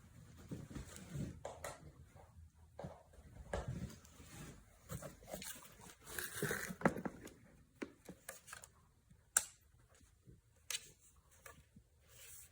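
Irregular rustling and crinkling with scattered light clicks and knocks, the busiest stretch a little past the middle and a couple of single sharp ticks near the end.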